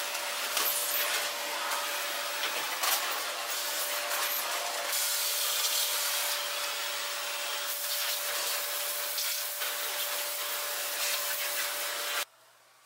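Vacuum cleaner running steadily with a constant whine, with some rubbing and a few light knocks as dust is wiped off a desktop computer case. It cuts off suddenly near the end.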